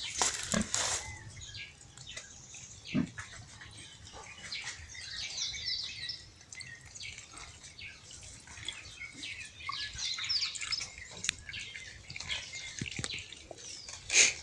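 Water poured from a plastic jug trickling, splashing and dripping off a hanging skinned carcass as it is rinsed, with birds chirping. A sharp clack comes near the end.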